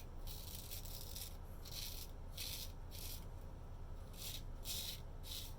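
Straight razor scraping through stubble on lathered skin in a run of short strokes, with a pause a little past the middle.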